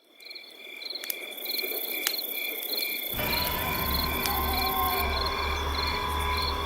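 Crickets chirping in a night ambience that fades in from silence, with repeated high chirps about twice a second. A low steady rumble comes in suddenly about three seconds in, with a few sharp clicks.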